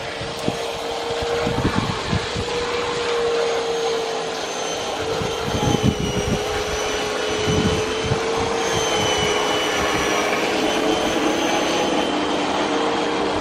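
Makita MLM-2851 electric reel lawn mower running and cutting grass: a steady motor whine with a faint high whistle above it and irregular low thuds. It carries an abnormal noise that the owner thinks comes from the reel-blade shaft bearing.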